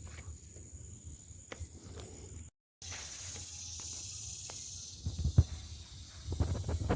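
Light knocks and clicks with a couple of dull thumps near the end, from hands-on mailbox installation work, over a steady high-pitched hiss. The audio drops out completely for a moment about two and a half seconds in.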